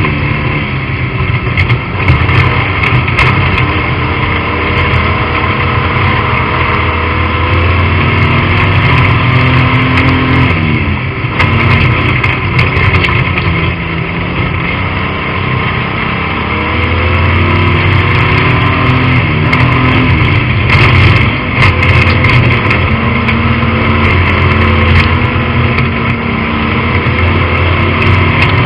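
Stockcar engine running hard, heard loud from inside the cockpit; its pitch dips briefly twice, then climbs again. A few sharp knocks come about two-thirds of the way through.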